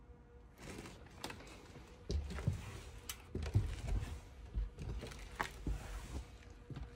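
Footsteps in irregular clicks and crunches, starting about half a second in, with heavier low thumps from about two seconds in.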